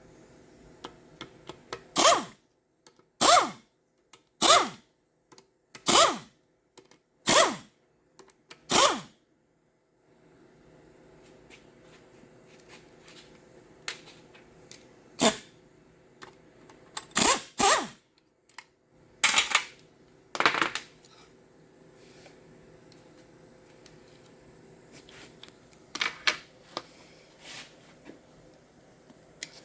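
Air tool run in short bursts on the bolts of a 4L60E automatic transmission being taken apart: six quick bursts about a second and a half apart, then a few more bursts in the middle, and some light clicks and clanks of parts near the end.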